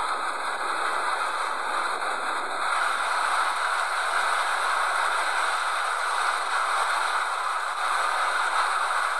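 Steady rushing jet noise of a Boeing 737 during its landing roll-out, thin and hissy with no deep rumble.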